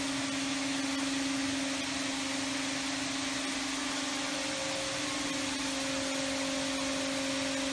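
Electric motor drive of a 1971 Boldrini Ribo 18 flanging machine running steadily: a constant hum with one clear mid-pitched tone over an even hiss.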